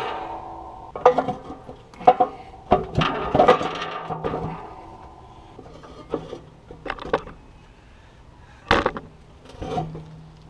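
Steel snow plow mount and mower implement hitch clanking and knocking together as they are worked into place, with metal scraping and short ringing after the harder knocks. A quick run of knocks in the first few seconds, then scattered ones, and a sharp knock near the end.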